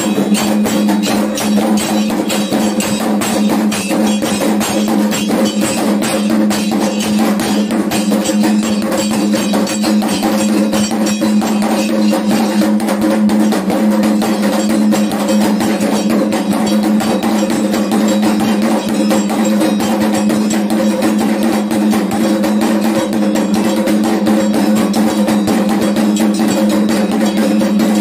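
Fast, unbroken beating of kendang hand drums accompanying a Dayak belian healing ritual, with a steady ringing tone held underneath the strikes.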